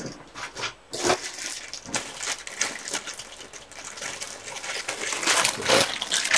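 Clear plastic parts bags crinkling and rustling as bagged model-kit parts are rummaged through and handled, in an irregular run of crackles that grows louder near the end.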